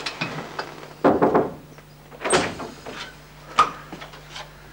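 Three separate knocks and clicks, over a second apart, the first fuller and the last two short and sharp, over a low steady hum.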